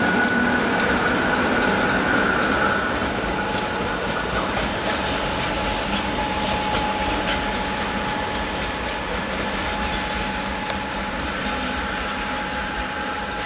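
ČD class 460 'Tornádo' electric multiple unit pulling away and receding, gradually fading. A steady electric whine sits over the rumble of its running gear, with wheels clicking over rail joints and points.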